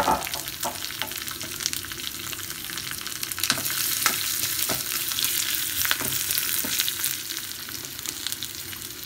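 Tempering of crushed garlic, green chillies and curry leaves sizzling in hot oil in a small steel pan, with a steady hiss. A wooden spatula stirring it knocks and scrapes against the pan now and then.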